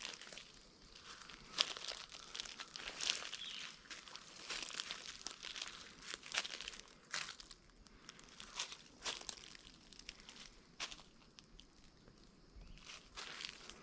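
Footsteps crunching through dry dead leaves and ground cover, one crunch roughly every second at a walking pace.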